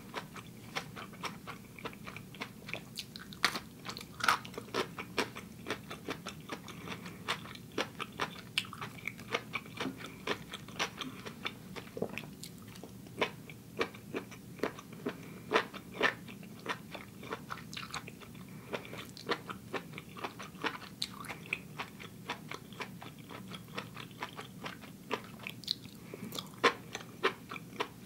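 Close-miked chewing of a mouthful of saucy mushrooms, with wet crunching and small clicking mouth sounds a few times a second.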